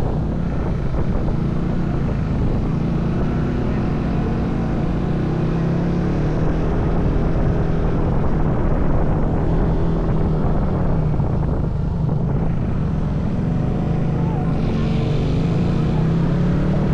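A vehicle engine running steadily at an even speed with a low, slightly wavering hum, heard while under way.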